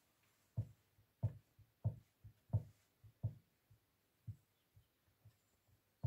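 Knife crimping the pastry edge of a pie: a steady run of short, dull taps, about two a second, some fainter than others.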